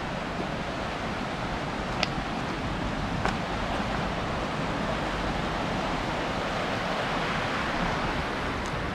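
A mountain stream rushing steadily over rocks, with a couple of faint clicks in the middle.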